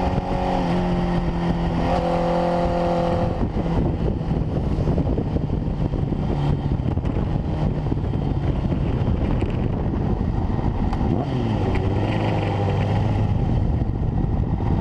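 Honda CBR1000RR inline-four engine running under heavy wind rush on the rear-facing camera's microphone. Its note holds steady for the first few seconds, then sinks lower as the bike slows. Near the end it settles to a low, slower running.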